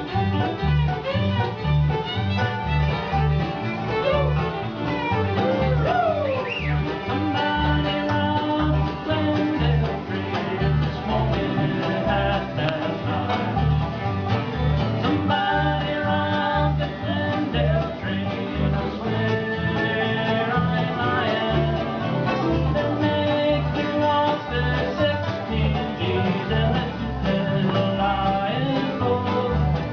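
Live bluegrass band playing an instrumental passage: fiddle, banjo, acoustic guitar and upright bass, with the bass keeping a steady beat and the fiddle sliding between notes early on.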